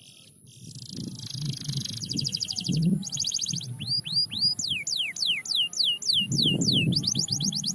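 Domestic canary singing: fast rattling trills, then a series of downward-sweeping whistles about two a second, then another fast trill near the end. A low rumble runs underneath, loudest near the end, with a steady high-pitched tone behind.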